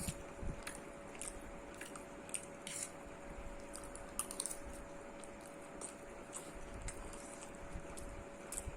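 A person chewing a mouthful of food close to the microphone, with soft, irregular clicks of the mouth and teeth.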